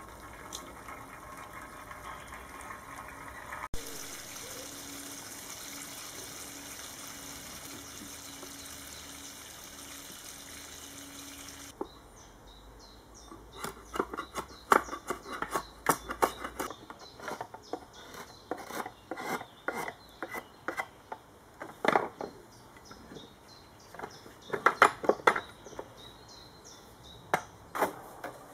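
A steady hiss, then after about twelve seconds a drawknife shaving a wooden pole on a shaving horse: a run of short, sharp scraping strokes, some in quick bunches.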